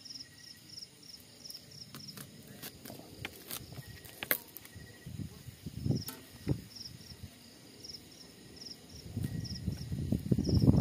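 Kitchen knife cutting through an onion onto a plastic chopping board, with a few sharp clicks and knocks, the loudest about four seconds in. Crickets chirp steadily in the background, a few pulses a second, and a louder muffled noise builds near the end.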